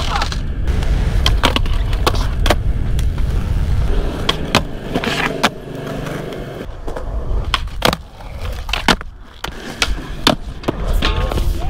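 Skateboard wheels rolling over concrete with a low rumble, broken by many sharp clacks at irregular intervals as the board's tail and wheels strike the ground during tricks.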